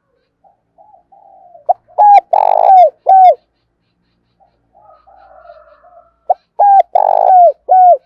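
Spotted dove cooing: two song phrases, each opening with soft low notes and closing with four loud coos, the third coo longer and rougher than the rest.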